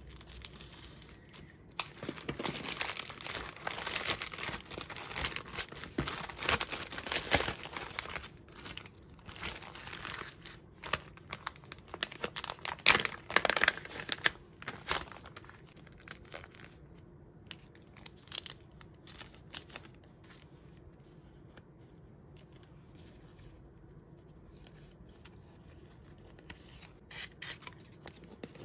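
Plastic courier mailer being slit open with a small cutter and torn, with dense tearing and crinkling through the first half. After that, quieter, scattered crinkles of plastic sleeves and a holographic bag as the contents are handled.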